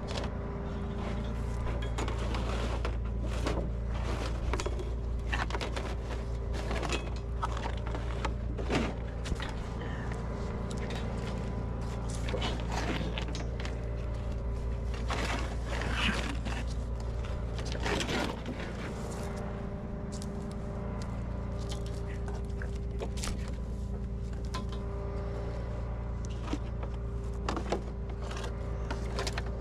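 Tow truck's engine idling steadily, with scattered clanks and knocks of recovery work over it and faint voices now and then.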